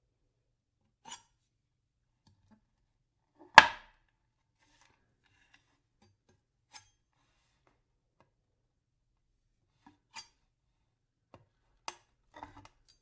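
A single loud, sharp knock about three and a half seconds in, with a short ring after it, and a few faint clicks and taps spread out before and after it.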